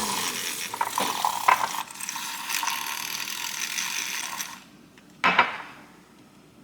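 Kitchen handling sounds while making coffee: a rattling, clicking noise for about four and a half seconds, then one sharp knock.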